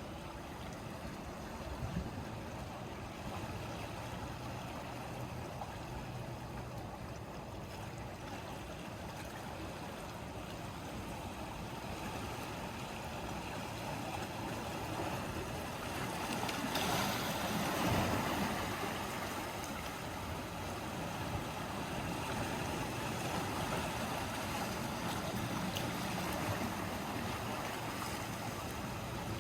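Sea waves washing against the shore in a steady wash of water, with one bigger wave surging in a little past the middle.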